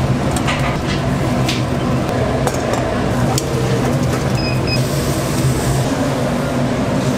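Restaurant kitchen noise: a steady low hum, a few light clinks of dishes or utensils, and a short electronic beep about four seconds in.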